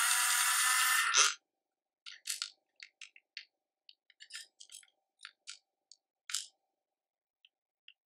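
Nuki smart lock's small geared motor running in a steady whir for about a second, driving the gear after its motor replacement, in a movement the repairer judges not right. Then a string of light plastic clicks and ticks as the lock's mechanism is handled.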